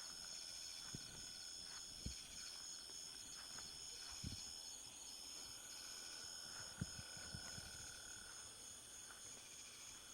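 A steady chorus of crickets and other night insects trilling, with a few faint knocks.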